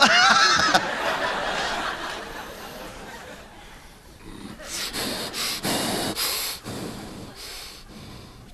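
A man's improvised vocal sound effects into a microphone: a run of short breathy huffs and snorts about halfway through. Audience laughter at the start.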